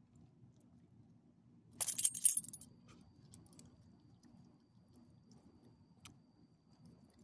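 A dog's metal collar tags and leash clip jangling in one short burst about two seconds in as the dog moves.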